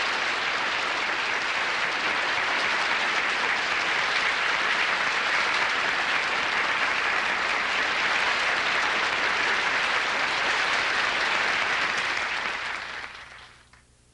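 Large studio audience applauding steadily, fading out near the end.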